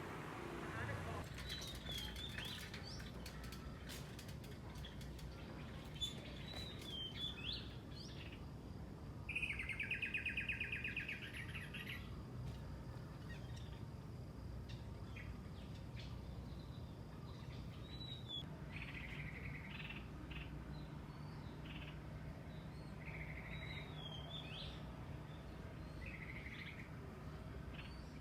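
Birds calling: scattered short chirps and whistles, with a rapid trill about nine seconds in that is the loudest sound, and shorter trills repeating later. A faint low hum runs underneath.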